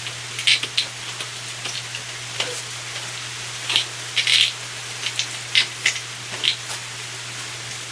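Steady hiss of rain, with several short crinkling bursts of packaging material being pulled off and handled, the longest about halfway through.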